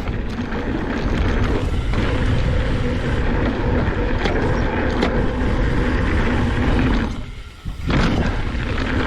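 Mountain bike ridden over a dirt trail, picked up by a chest-mounted action camera: steady wind buffeting and rumbling tyre noise, with a few clicks and knocks from the bike. The noise drops away briefly near the end, then resumes.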